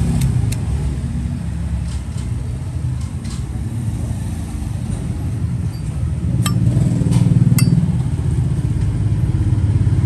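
Steady low engine rumble of passing road traffic with motorbikes, swelling around seven seconds in, with a few sharp clicks over it.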